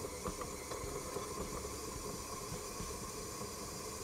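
Tilt-head stand mixer running steadily on butter and sugar in a steel bowl: a motor hum with a paddle knocking irregularly through the mix.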